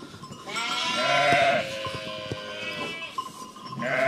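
Sheep bleating in the barn: a long bleat begins about half a second in, and another starts near the end.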